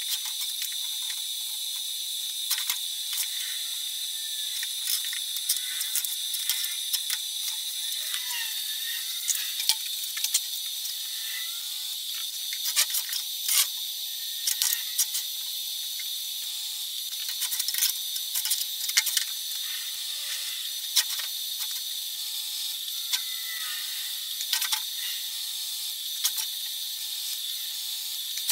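Scattered light clicks and taps of steel plates and a clamp being handled and set in position on a steel table. A steady high-pitched hiss runs underneath.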